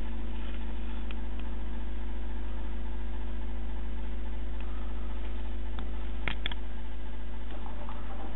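A steady low hum made of several constant tones, with two short clicks about six seconds in.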